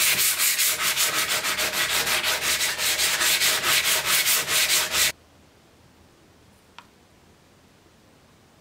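Sandpaper rubbed by hand, back and forth, along a steel Mauser 98K bayonet scabbard: quick scratchy strokes, about five a second, that stop abruptly about five seconds in. Quiet afterwards apart from one faint tick.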